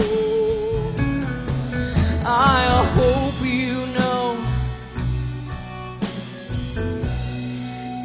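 Live band playing a slow ballad with guitar, under a woman's wordless sung phrases that waver and slide in pitch.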